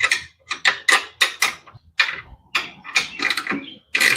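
An irregular series of about a dozen sharp mechanical clicks and clunks, like hardware being worked by hand on the car's steering and seat mounts.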